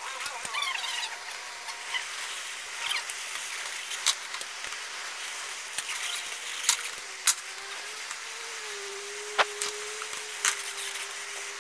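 A red-hot metal rod scorching lines into a wooden hatchet handle: faint sizzling and crackling over a steady hiss, with a few sharp clicks scattered through.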